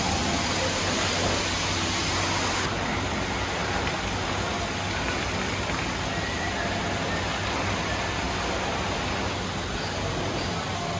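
Steady rushing hiss of water spray in a car-wash bay. It is brightest in the first three seconds, then drops suddenly to a duller, even hiss.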